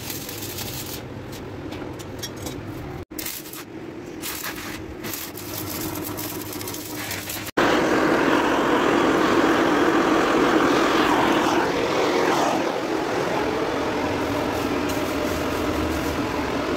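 Workshop noise with faint crackling, then after a sudden cut a loud steady roar from a forge fire with air blown through it while a knife blade heats.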